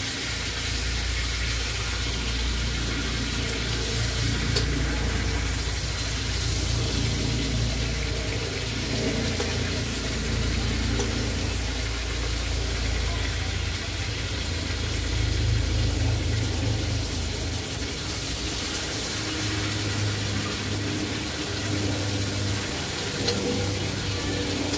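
Onion and garlic frying in oil in an electric skillet, a steady sizzling hiss, over a steady low rumble, with a couple of light clicks.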